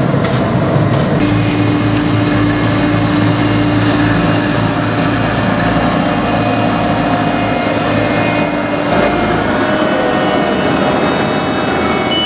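Heavy diesel road-paving machinery running steadily with a droning engine note. The deepest part of the rumble drops away about nine and a half seconds in.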